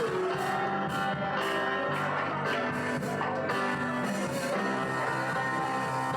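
Worship music led by guitar, with held chords and a steady beat.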